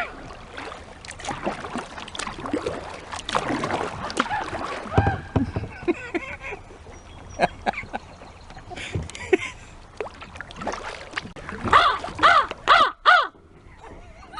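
Crows cawing, with a run of loud calls near the end, amid scattered knocks.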